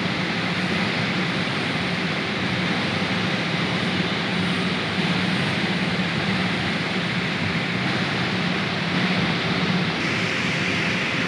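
Steady industrial machinery noise: a constant rushing sound with a low hum underneath that wavers slightly in level.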